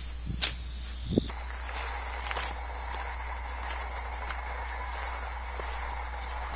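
A steady, high-pitched insect chorus, with a couple of short knocks in the first second or so.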